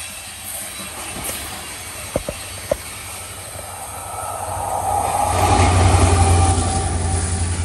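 Train rolling past on the line: a few sharp clicks in the first three seconds, then the rumble swells with a low hum from about four seconds in, loudest around six seconds, and eases near the end.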